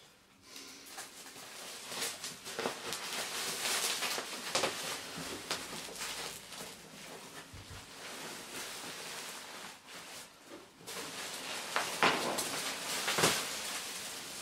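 Plastic bubble wrap crinkling and crackling as it is cut open and pulled off, with scattered sharp clicks and rustles that come and go in loudness.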